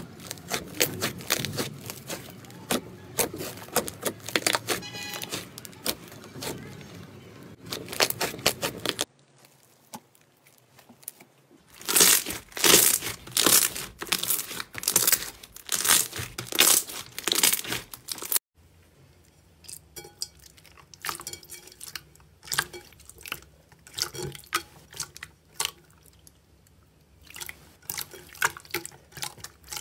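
Slime being squished and poked by hand, giving sticky crackling and clicking. It changes abruptly twice: first a dense crackle, then louder wet pops about twice a second, then sparser clicks.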